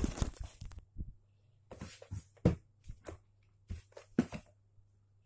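Irregular clicks and knocks of hard plastic being handled, as a home-made battery adapter and its batteries are fiddled with on a cordless drill to cure a bad contact, over a faint steady low hum.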